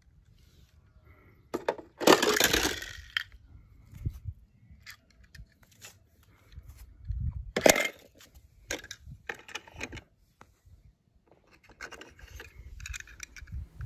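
Die-cast toy cars and a plastic toy-truck carrier case being handled: scattered clicks, scrapes and rattles, with two louder scraping bursts about two and about eight seconds in.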